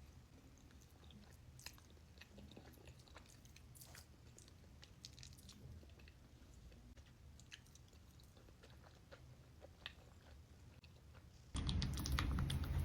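A person chewing mac and cheese, with faint scattered mouth clicks and smacks. The sound becomes much louder near the end.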